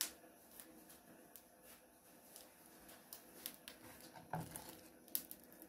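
A little cooking oil heating in a frying pan, giving faint, scattered crackles and ticks. There is a sharper click right at the start and a brief rustle about four seconds in.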